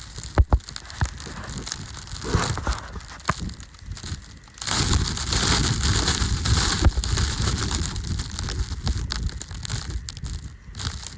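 Wind buffeting the microphone in a blizzard, with scattered crackles and crunches at first and then a sudden loud rush of wind noise about five seconds in that carries on.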